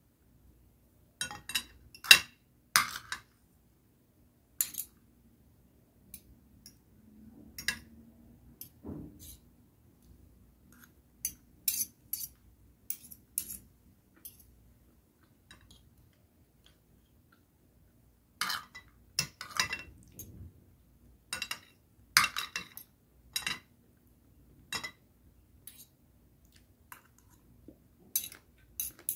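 Metal cutlery clinking and scraping against a plate during a meal, in irregular clusters of short sharp taps with quiet gaps between.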